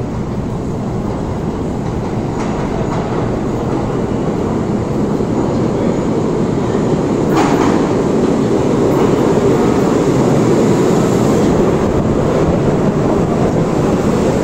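R32 subway train running into an underground station, its rumble of wheels on rail growing steadily louder as it approaches and passes close by. A few sharp clacks of wheels over rail joints, the loudest about seven seconds in.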